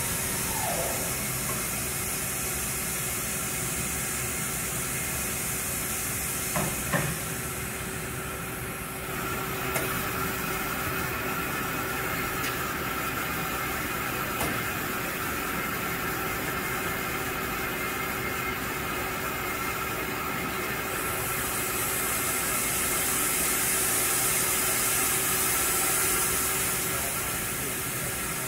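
Steady machine hum and hiss with a few constant tones, the hiss swelling about three-quarters of the way through; a couple of brief knocks about seven seconds in.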